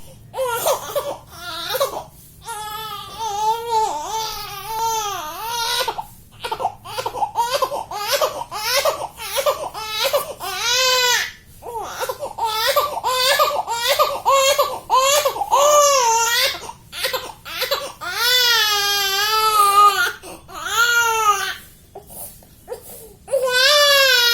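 Baby crying hard: long high wails, then a stretch of short choppy cries and gasps, then long wails again near the end.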